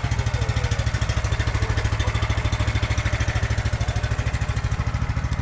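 Gemini off-road buggy engine running steadily close by, a low, fast, even throb.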